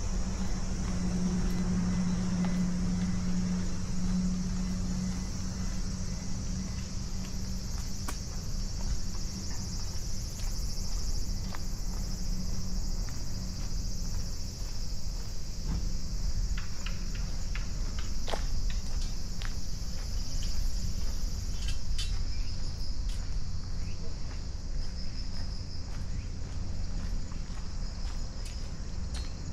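A steady, high-pitched chorus of insects shrilling, with some short pulsed calls near the end. Under it runs a low rumble, with a low hum in the first few seconds and a few light clicks in the middle.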